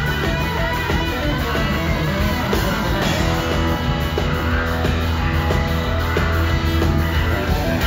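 Live rock band playing an instrumental passage led by guitar over sustained bass notes.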